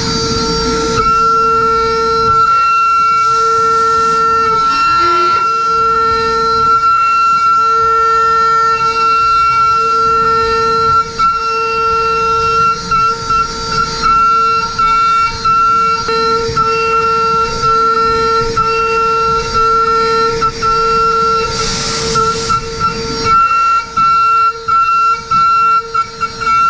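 Datron M8Cube high-speed spindle driving an end mill through aluminium: a loud, steady cutting whine made of several fixed high tones. In the last few seconds the sound keeps dropping out briefly.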